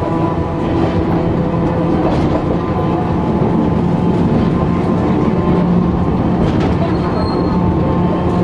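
Hiroshima Electric Railway 700-series streetcar running at a steady speed, heard from inside the cab: a steady hum from its traction motors and gears over the rumble of wheels on rail, with a few faint clacks.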